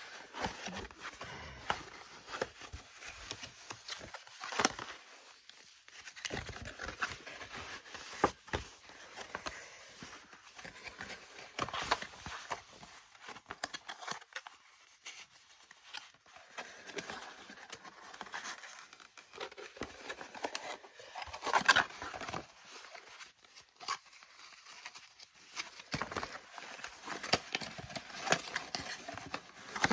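Thin cardboard of a flat-pack box being folded and handled by hand: irregular scraping, rustling and creasing, with sharp taps and snaps as flaps are pressed into place. The loudest snap comes about two-thirds of the way through.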